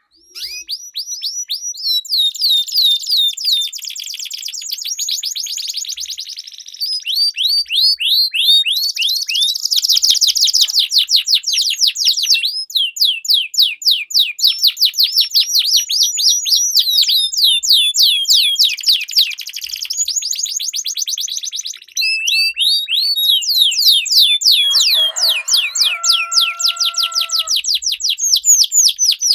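Domestic canaries singing a long, unbroken rolling song of fast repeated trilled notes, the phrases changing every few seconds. About 25 seconds in, a lower, steady two-tone note sounds under the song for about two seconds.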